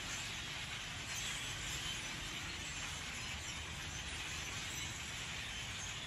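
Steady, dense chatter of a large flock of birds perched in a tree, with a low rumble underneath.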